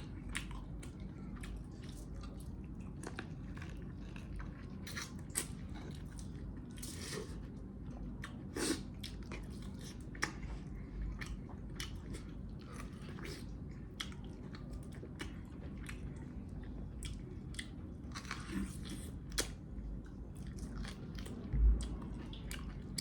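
Close-miked eating of spicy mutton leg pieces: steady biting and chewing with wet smacks and crunches. A single louder low thump near the end.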